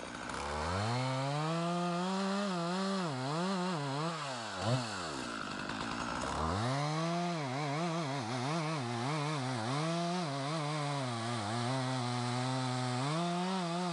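Two-stroke chainsaw running at high throttle, its pitch wavering up and down as it loads and unloads in the wood. About five seconds in it drops to idle, then revs back up and keeps cutting.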